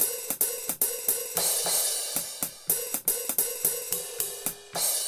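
Alesis SR-16 drum machine's sampled hi-hats and cymbals played from its pads: a quick, irregular run of closed and open hi-hat ticks and ride strokes. Crash hits ring out and fade between them.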